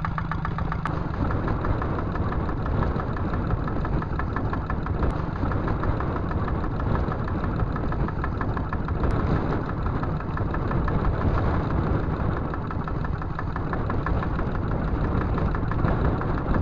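Kubota single-cylinder diesel engine on a small outrigger fishing boat, running steadily with an even, fast chug.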